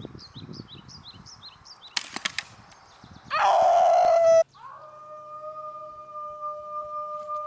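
A man howling like a wolf: a loud cry about a second long that cuts off suddenly, after a run of quick high chirps. A steady held tone of two pitches follows.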